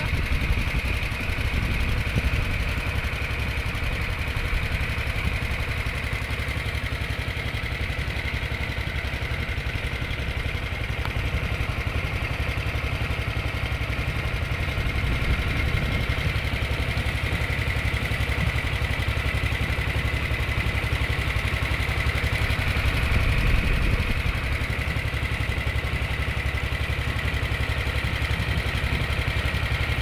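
A small boat's engine running steadily while under way, heard from on board, swelling a little about three-quarters of the way through.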